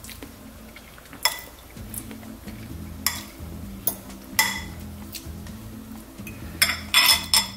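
Metal fork stirring liquid in a glass bowl, clinking against the glass in irregular sharp taps, with a quick run of clinks near the end.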